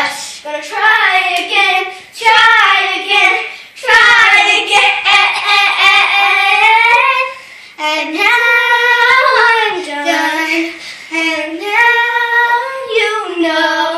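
Young girls singing a song, holding long notes with short breaks between phrases.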